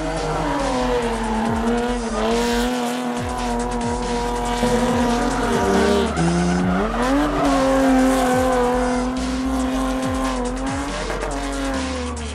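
BMW E30 drifting, its engine held high in the revs while the rear tires squeal. The revs dip and climb back about six seconds in, and dip again near the end.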